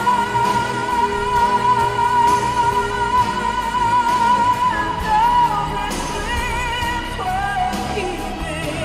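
Pop ballad with singing over a full backing. A long note is held for about five seconds, then a wavering melody follows.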